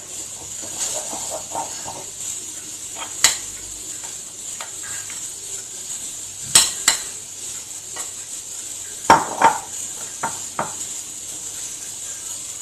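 Kitchen utensils knocking against dishes: scattered sharp clinks, a few of them in close pairs, over a faint steady hiss.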